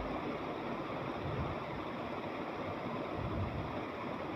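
Steady rushing hiss of background noise, with a few faint low bumps.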